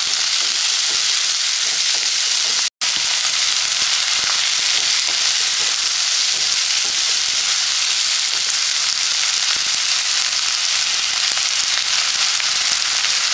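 Chopped onion, tomato and green chilli sizzling steadily in hot oil in a nonstick pan while a wooden spatula stirs them. The sound cuts out completely for a split second nearly three seconds in.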